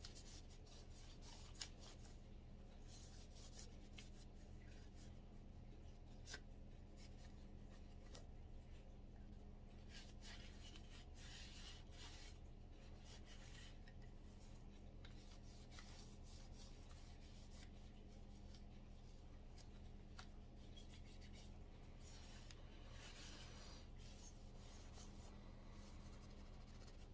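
Faint rubbing of a microfiber cloth wiping down a Walther CCP pistol, in soft uneven strokes with a couple of small ticks of the gun being handled.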